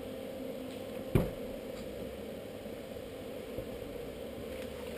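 A steady low mechanical hum, with one sharp knock about a second in.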